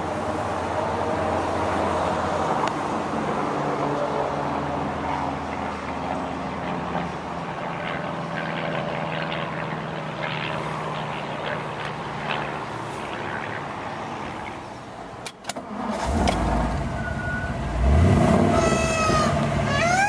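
1957 Ford Thunderbird's 312 cubic-inch V8 idling steadily. A sharp click comes about 15 seconds in, then a louder low rumble and a repeating rising-and-falling tone near the end.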